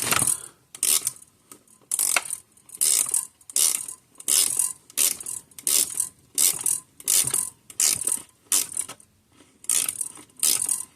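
Hand ratchet being worked back and forth in short strokes to drive a fastener, about fourteen sharp rasping clicks roughly one every 0.7 seconds, with a brief pause near the end.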